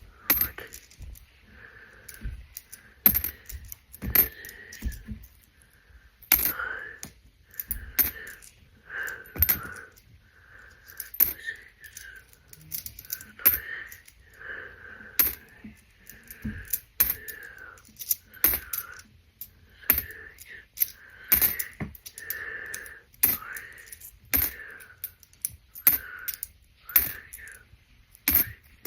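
Pennies clicking and sliding on a hard surface as they are counted out by hand. There is a coin click or a soft slide about once a second, with a few sharper clinks in between.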